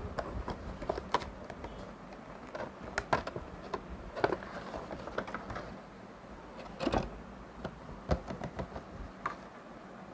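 Cardboard box and clear plastic packaging tray being opened and handled: scattered clicks, taps and light rustling, with a few louder knocks about three, four and seven seconds in.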